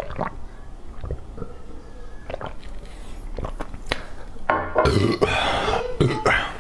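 Close-miked eating sounds: wet chewing and smacking with scattered sharp clicks, then a louder, longer noisy stretch about four and a half seconds in.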